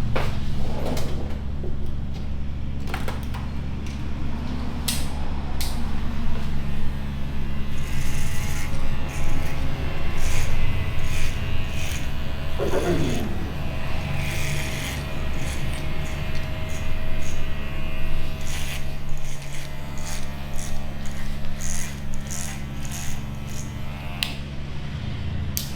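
Electric hair clippers running with a steady low buzz while cutting hair, with rubbing and short clicks as they work through the hair.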